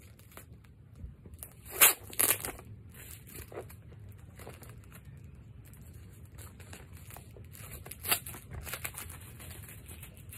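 Paper courier packaging being cut with scissors and torn open, with crinkling of paper and plastic wrap. There are sharp, loud rips about two seconds in and again about eight seconds in.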